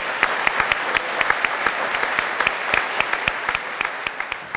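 Audience applauding: many hands clapping in a dense, steady patter that thins slightly near the end.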